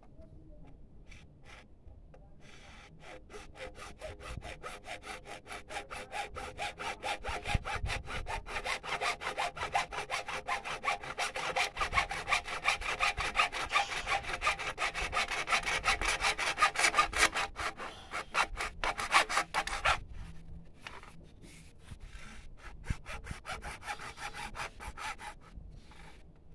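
Hacksaw cutting through a plastic drain pipe with rapid, even back-and-forth strokes that grow louder as the cut deepens. The sawing stops abruptly about twenty seconds in, then a few slower, lighter strokes follow near the end.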